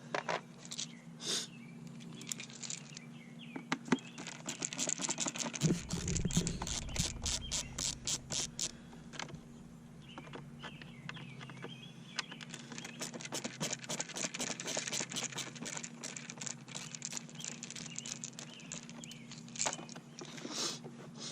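Runs of rapid clicking from a hand tool backing out the screws of a car's A/C blower cover, with a dull thump about six seconds in and a steady low hum underneath.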